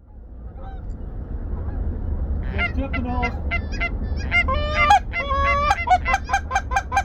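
A flock of Canada geese honking, the calls starting about two and a half seconds in and growing louder and more frequent, over a steady low wind rumble.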